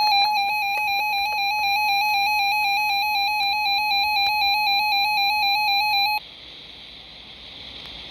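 Electronic emergency-alert attention tone on a weather radio broadcast: a loud, rapidly warbling tone with several high overtones. It cuts off abruptly about six seconds in, leaving only low radio hiss.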